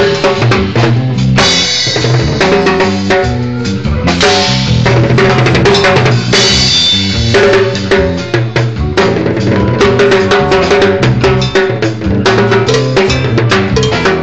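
A band playing live at a sound check, the drum kit to the fore: kick, snare and rimshot hits over a bass line. Bright cymbal washes come in three times.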